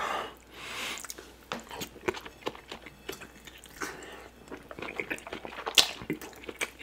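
Close-miked wet eating sounds: a soup-soaked piece of meat is bitten and chewed, with lip smacks and many small sharp clicks. The loudest click comes near the end.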